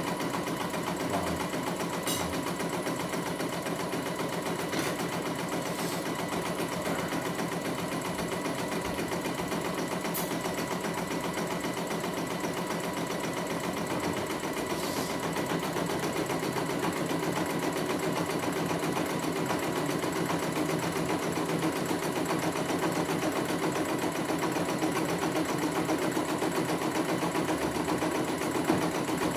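Computerized embroidery machine stitching a design, its needle running at a fast, even rate, with a few light clicks along the way.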